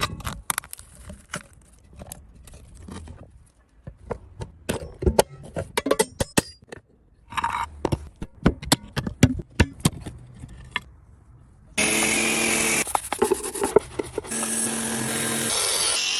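A run of sharp clicks and knocks, as of tools and metal parts being handled, then a power tool running in two stretches near the end, with a short break between them.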